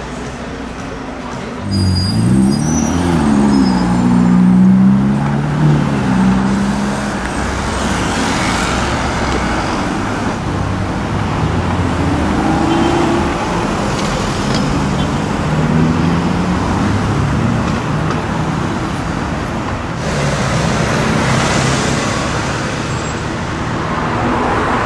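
A supercar engine revving loudly a few times about two seconds in, its pitch rising and falling, then steady city traffic with engines pulling away and cars passing.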